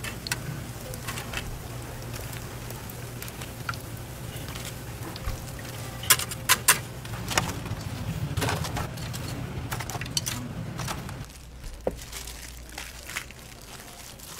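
Oil sizzling in a deep fryer as battered seaweed rolls fry, over a steady low hum, with sharp metallic clinks of steel tongs against the wire draining rack, several around six to seven seconds in. The sizzle and hum stop about eleven seconds in, leaving only a few small clicks.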